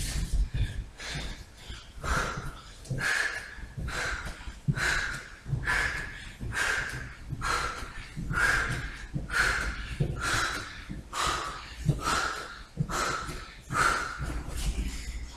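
A man breathing hard, a forceful huff about once a second, from the exertion of crawling on all fours; soft thuds of hands and feet on the mat come in between.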